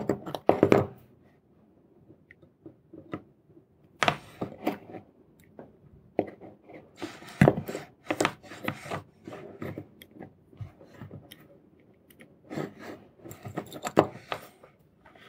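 Handling noise from a small circuit-board assembly: irregular little clicks, taps and crackles as wires and the printed circuit boards are moved and worked with a soldering iron, coming in scattered clusters with quiet gaps between.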